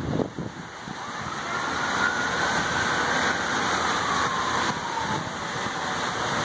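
Steady rush of water from a fountain's row of spouts. A faint, thin whistle-like tone is drawn out and falls slowly through the middle.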